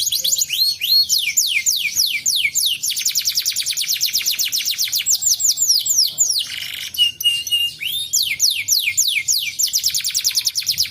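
Domestic canary singing a long unbroken song of rapid falling whistled notes, with a fast even trill in the middle. About two-thirds through comes a brief buzzy phrase and three short level notes before the falling notes resume.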